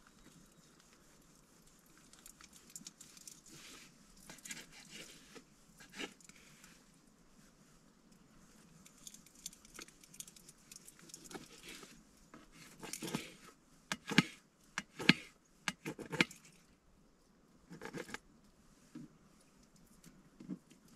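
Knife cutting raw meat on a plastic cutting board: soft slicing and scraping, with several sharp knocks of the blade on the board about two-thirds of the way through.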